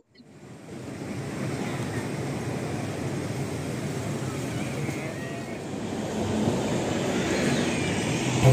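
Steady outdoor city street noise, mostly traffic, fading in over the first second.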